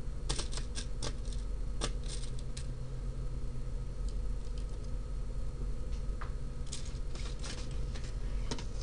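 Light scattered clicks and taps from handling tweezers and breadboard jumper wires, in a cluster near the start and another about two-thirds of the way through, over a steady low hum.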